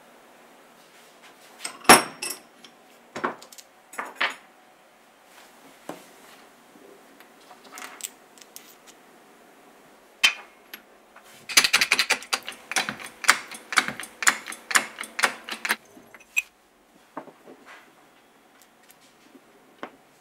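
Metal clinks and taps as new sealed ball bearings are fitted onto the right angle drill's steel shaft, using a socket as a driver in a bench vise. A loud knock comes about two seconds in, a few more taps follow, and past the middle comes a fast run of clinks lasting about four seconds.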